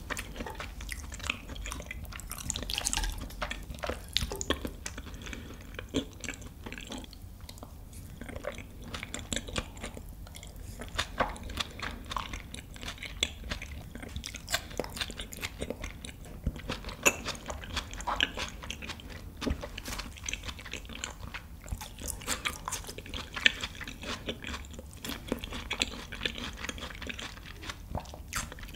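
A person chewing raw beef tartare (yukhoe) with fresh greens, close to the microphone: a steady run of short, soft clicks from mouth and chewing.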